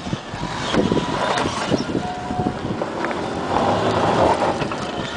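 A Toyota Hilux pickup's engine working as the truck climbs a loose rocky slope. Gravel and stones crunch and knock under the tyres, and wind buffets the microphone.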